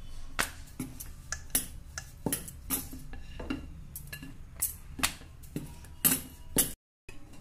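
Wooden rolling pin knocking against a stone slab while dough is rolled out, in a dozen or so irregular sharp clacks about every half second.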